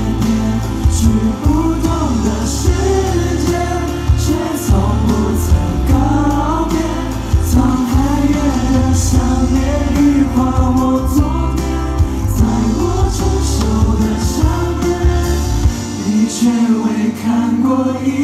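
Live pop song: a male vocal group sings a melody over an amplified band with heavy bass and drums. Near the end the deep bass drops out, leaving the voices over lighter backing.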